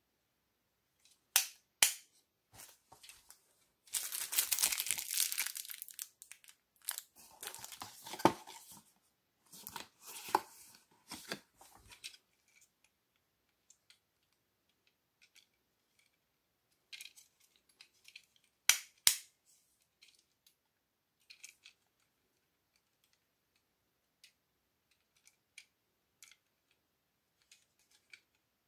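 Handling noise from a plastic wall socket plate with USB ports and a rocker switch, and its packaging: scattered sharp plastic clicks and knocks, a couple of seconds of rustling about four seconds in, and two sharp clicks close together just past the middle.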